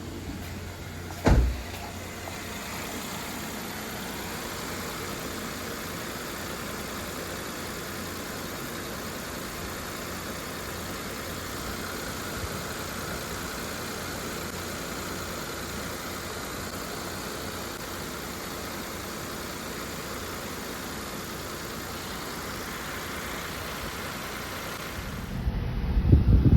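An air conditioner running with a steady hiss of airflow. A single sharp knock comes about a second in, and a burst of knocking and handling noise comes near the end.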